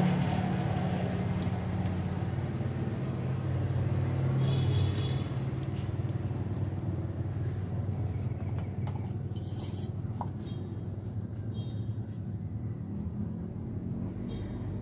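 Steady low engine rumble, easing slightly about five seconds in, with a few faint short high chirps over it.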